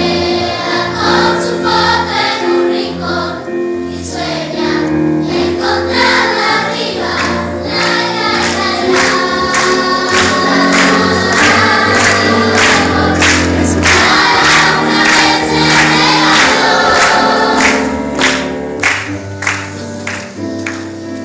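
Children's choir singing a murga together, with regular percussion strikes and low sustained notes underneath; the music thins out and drops in level near the end.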